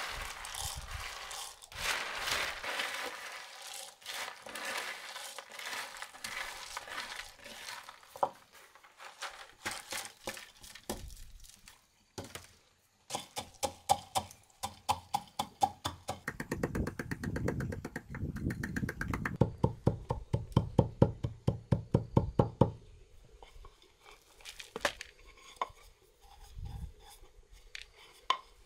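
Roasted peanuts rattle and patter as they are poured from a bamboo tray into a wooden mortar. A wooden pestle then pounds them with a steady run of knocks, two or three a second, for several seconds. Near the end a few knocks and rustles come as the crushed peanuts are tipped out into a plastic bowl.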